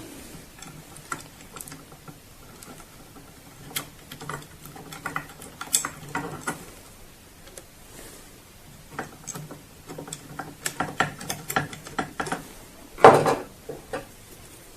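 Light metallic clicks and scrapes of a crosshead screwdriver driving the two screws that hold the top plate on a small printer unit, with handling of the metal parts. A single louder knock comes near the end.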